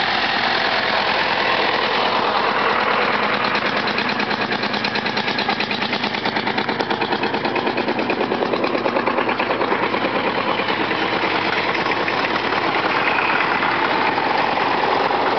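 Vintage tractor engines chugging as the tractors drive past one after another. One passes very close in the middle, its engine's rapid, even firing beat the loudest part.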